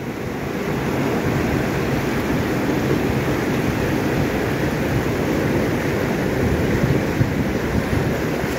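Steady rush of a fast-flowing river over rapids, with no breaks.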